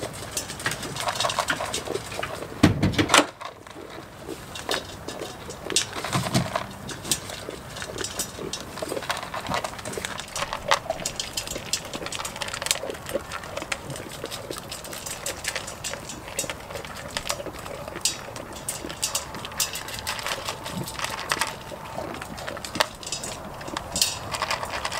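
Goats feeding from bowls and moving about on straw: many small clicks and crunches, with one loud low thump about three seconds in.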